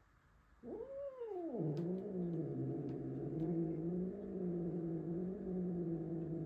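A cat growls. It gives a short yowl that rises and falls about half a second in, then goes into one long, low growl that wavers slightly. It is an angry, hostile growl at a new cat brought into the house.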